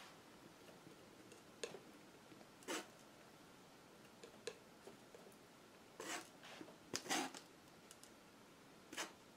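Metal palette knife dabbing and scraping acrylic paint onto a canvas panel: about six short scraping strokes at irregular intervals, with quiet gaps between them.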